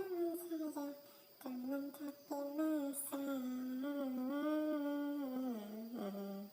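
A single voice singing a melody without words, close to humming, in a string of held notes with a long one in the middle; it drops to a lower note near the end and cuts off suddenly.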